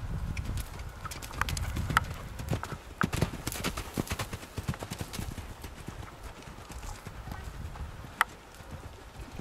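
Hoofbeats of two young Irish Sport Horses cantering loose on a dirt arena, dull thuds with sharp strikes among them, thinning after about four seconds, and a single sharp knock about eight seconds in.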